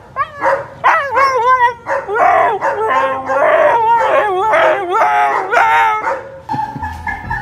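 Siberian husky howling and 'talking' in a run of wavering woo-woo calls that slide up and down in pitch, for about six seconds before dying away.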